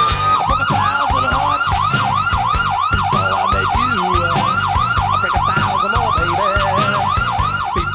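Police-style siren in a fast yelp, its pitch sweeping down and up about three times a second, beginning about half a second in after a slow rising wail. Background music with a bass line plays underneath.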